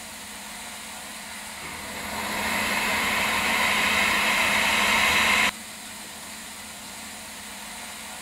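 Compressed-air jet hissing out of a small lab nozzle. About two seconds in it swells louder and higher-pitched, then cuts off sharply a little past halfway, back to a softer steady hiss.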